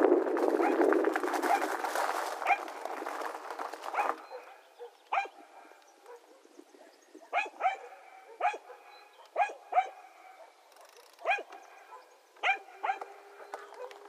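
A steady rushing noise that stops about four seconds in, then a dog barking about a dozen times: short, sharp single barks and pairs at irregular intervals.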